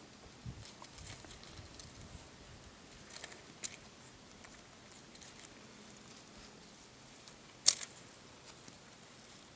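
Light scuffing and rustling on a dirt path as a kitten bats and grapples a cat-teaser toy on a string, with scattered small ticks and one sharp click near the end.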